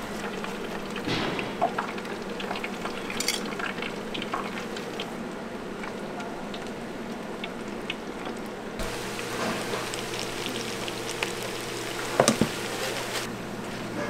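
Deep-fryer oil sizzling steadily with scattered small crackles, and a few sharp knocks, the loudest about twelve seconds in.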